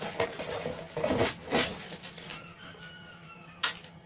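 Plastic RC car parts and their packaging being handled, with short rustling and clattering sounds in the first couple of seconds and one sharp click near the end.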